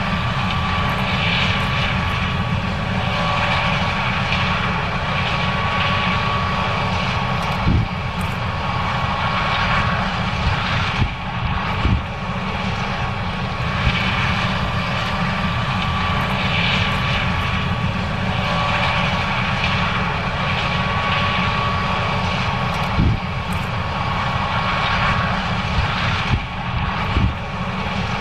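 John Deere S790 combine running steadily while harvesting corn: a constant machine drone with a held whining tone, and a few brief knocks.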